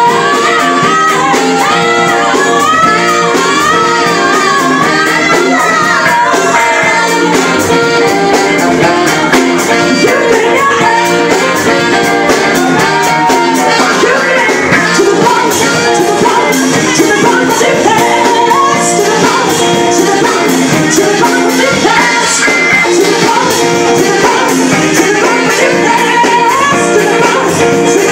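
Live band playing, with a woman singing lead vocals over electric guitar and drums. The recording is loud and unbroken, made on a mobile phone.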